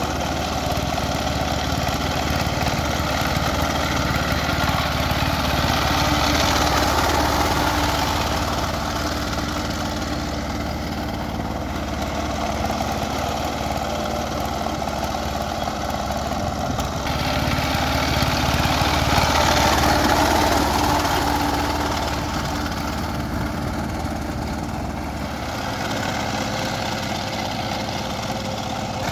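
Two-wheel power tiller's single-cylinder diesel engine running steadily under load while puddling a flooded paddy field, swelling louder twice, around six seconds in and again around twenty.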